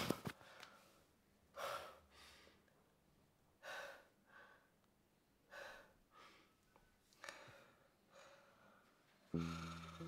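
A man breathing slowly and deeply, four in-and-out breaths about two seconds apart, with nothing else between them. Music comes in near the end, louder than the breaths.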